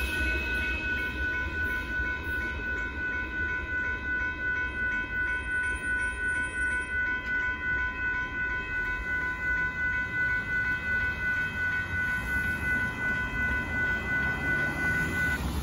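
Freight train (a Union Pacific gravel train) rolling past with a steady low rumble. Several steady high ringing tones sound over it and stop shortly before the end.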